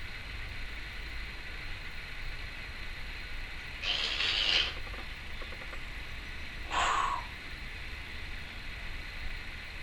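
Timneh African grey parrot making two short breathy, hissing noises, one about four seconds in and a briefer one about three seconds later, over a steady low background hum.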